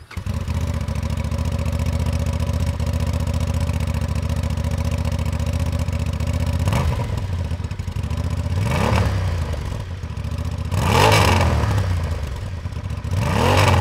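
Honda XL750 Transalp's parallel-twin engine idling steadily, then revved in four short throttle blips, the first about seven seconds in, each rising and falling back to idle.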